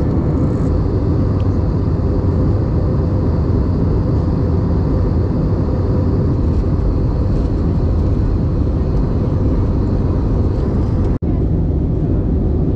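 Steady cabin noise inside an Airbus A321 airliner during its descent: engine and airflow noise heard from a seat over the wing. It breaks off for an instant near the end.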